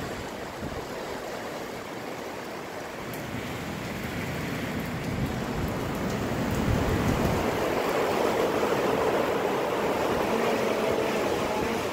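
Gusty wind rushing through trees with steady rain, swelling in strength about halfway through and staying strong.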